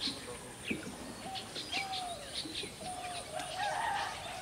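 Birds chirping and calling: quick high chirps mixed with a run of short, lower calls, and a light knock just under a second in.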